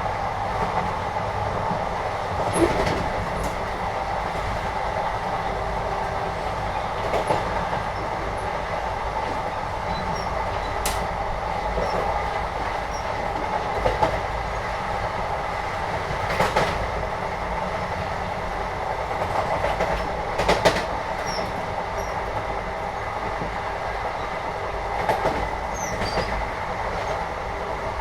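Indian train heard from inside a carriage while moving: a steady rumble and hum with sharp clacks every few seconds, typical of the wheels running over rail joints.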